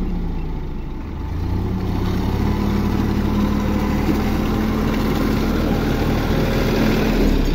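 Sonalika tractor's diesel engine running under load, pulling a disc harrow on cage wheels through flooded mud to puddle the field for rice transplanting. The engine note dips briefly about a second in, then holds steady.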